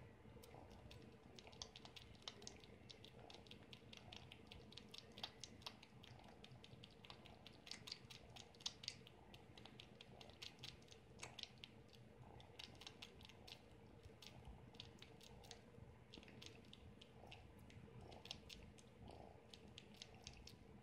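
Faint, quick wet clicks in irregular clusters from a kitten suckling on a man's bare skin as if nursing.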